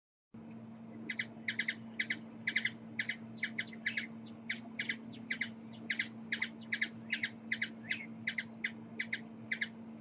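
Hummingbird calling: short, sharp chips, often in quick pairs, about two to three a second, over a steady low hum.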